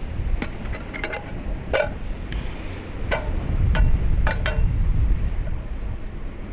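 Light metallic clinks and clicks, about nine in the first four and a half seconds and loudest near two seconds in, from handling a small metal camping kettle on a gas stove, over the low rumble of wind on the microphone.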